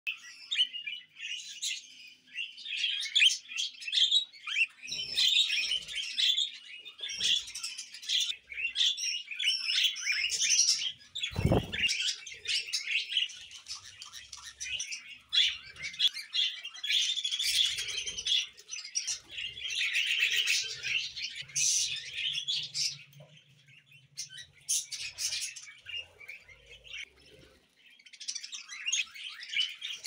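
Several budgerigars chirping and chattering in a dense, rapid stream of high notes, with one dull thump about eleven seconds in. The chatter thins out for a few seconds before the end.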